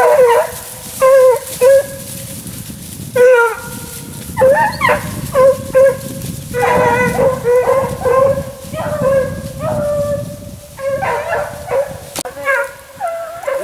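Hounds baying on a rabbit's scent trail: several dogs giving repeated short barks and longer drawn-out bawls that overlap one another.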